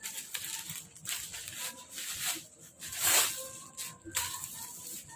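Plastic packaging and clothing rustling and crinkling in irregular swells as shirts are unpacked and handled, loudest about three seconds in.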